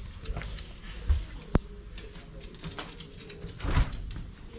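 A toy poodle's claws clicking and pattering on a hard floor as she walks, with a few sharper knocks and a louder thump near the end.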